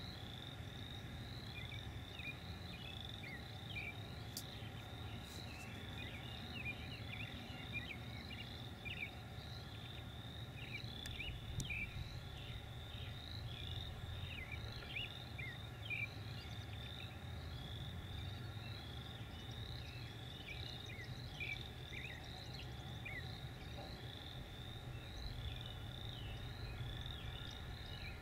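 A steady outdoor chorus of many high chirps over a continuous pulsing high trill, with a constant low rumble underneath.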